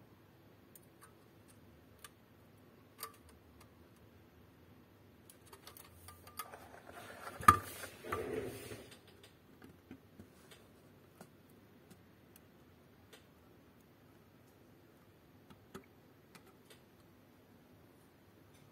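Scattered small clicks and taps of electronic parts being handled and pressed onto a circuit board. A busier stretch of rustling and scraping comes in the middle, with one sharp click about seven and a half seconds in.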